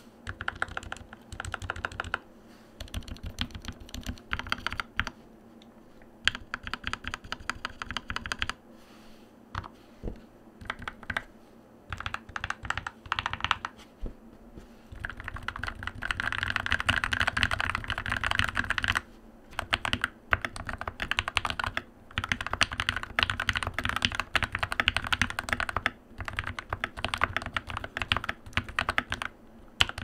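Typing on a modded Keychron K4v2 mechanical keyboard fitted with Krytox 205g0-lubed Gateron Milky Yellow linear switches and Durock V2 stabilizers, its case dampened with polyfill and painter's tape for a deeper, 'thocky' sound. Short runs of keystrokes with pauses in the first half, then fast, nearly continuous typing from about halfway on.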